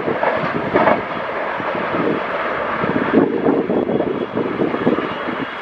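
Passenger train coaches passing through a station at speed: a steady, loud rush of wheel and rail noise, easing off slightly near the end.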